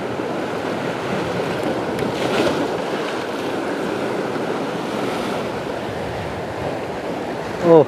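Waves washing against shore rocks, with wind buffeting the microphone. Just before the end, a short, loud sound falls steeply in pitch.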